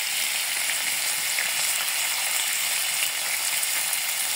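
Fish pieces frying in hot oil in a large iron pan: a steady sizzle with fine crackles.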